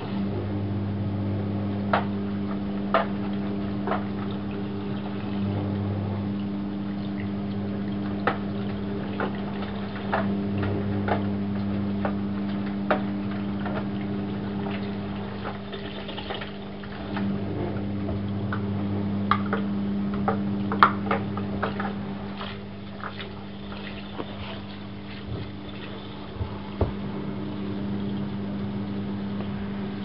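Privileg Classic 30612 front-loading washing machine taking in water for a rinse: water gushes into the drum through the inlet over a steady machine hum, with scattered splashes and drips.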